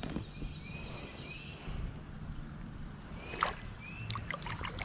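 Shallow stream water sloshing and splashing around hands held in it as a smallmouth bass is released, with a few sharp splashes about three and a half seconds in and more near the end. A short high chirp recurs several times.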